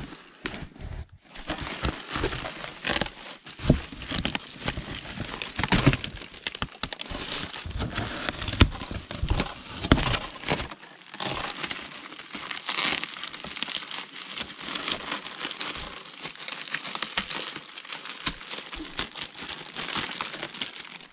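Plastic packaging and bubble wrap crinkling and crackling as bubble-wrapped parts and a plastic bag are handled in a cardboard box, with many small irregular crackles and clicks.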